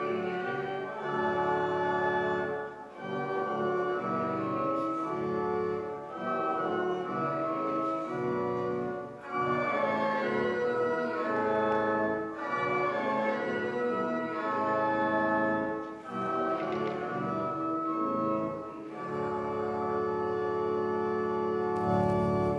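Organ playing a slow piece in held chords, with brief breaks between phrases, ending on a long sustained chord.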